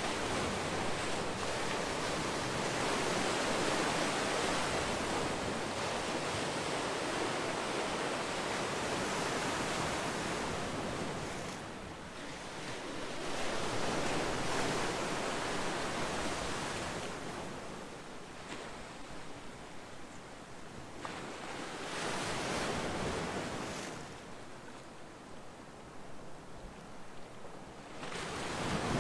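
Ocean waves breaking and washing on a shore, a steady rushing surf that swells and ebbs as successive waves come in, about four surges.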